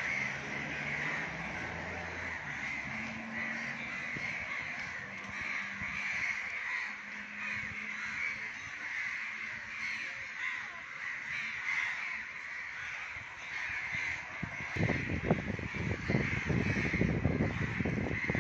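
A continuous chorus of birds calling, shrill and unbroken. Near the end comes a run of clattering knocks as the upturned children's bicycle is handled.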